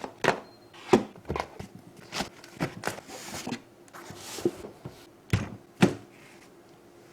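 Irregular knocks and taps of a keyboard box and its packaging being handled and opened, with short rustles in between. The handling stops about six seconds in.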